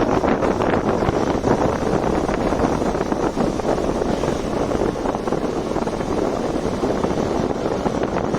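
KTM Duke 200's single-cylinder engine running steadily while riding, mixed with wind buffeting the microphone.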